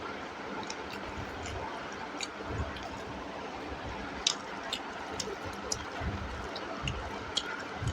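A person eating rice and curry with gravy close to the microphone: irregular wet mouth clicks and smacks of chewing, with a few soft low thumps, over a steady hiss.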